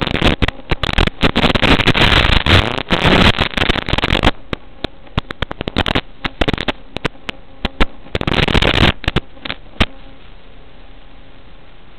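Static on the audio channel of an analog FPV video link recorded by the goggle DVR: loud hiss and crackle with many sharp clicks for about four seconds, then quieter hiss with scattered clicks and a loud burst of crackle near nine seconds, settling into a steady low hiss from about ten seconds.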